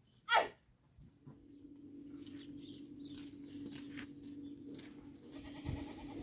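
A goat bleats once near the start, a short falling call. About a second in, a steady low hum begins and runs on, and a bird gives a brief high whistle partway through.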